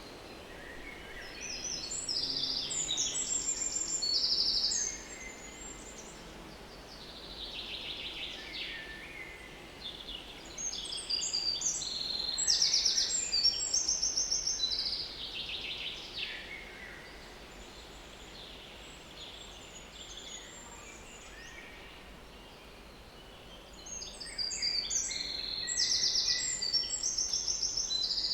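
Small woodland songbird singing loud, high trilling song phrases, each three to five seconds long, three of them about ten seconds apart, with a softer phrase between the first two, over faint steady outdoor ambience.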